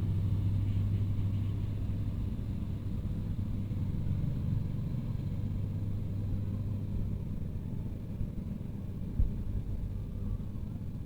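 A farm machine's engine running steadily with a low hum that slowly grows fainter. There is a single short thump about nine seconds in.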